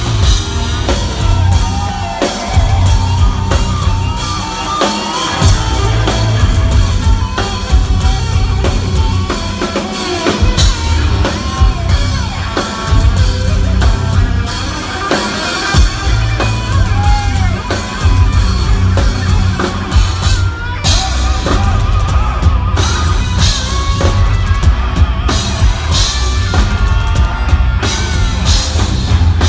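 Heavy metal band playing live at full volume, with a pounding drum kit and bass drum under the band.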